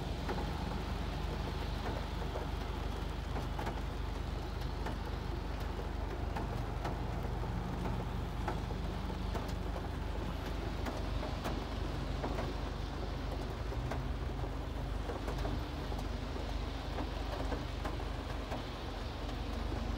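Rain falling on a car's windshield, with scattered faint drop ticks over a steady low hum.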